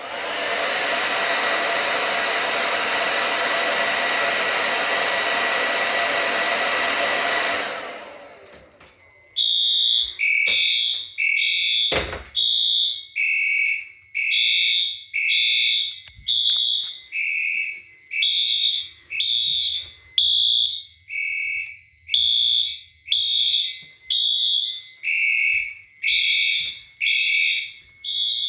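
A hot-air blower runs for about eight seconds, heating a System Sensor 5151 rate-of-rise heat detector, then stops. About a second later the detector trips and the fire alarm sounds: short pulses that alternate between a higher and a lower tone, with a single sharp knock soon after they start.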